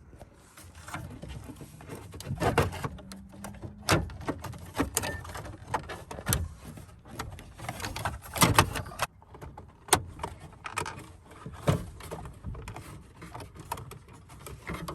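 Irregular plastic clicks, taps and rattles of a headlight dimmer switch being pressed and seated into a pickup truck's dash.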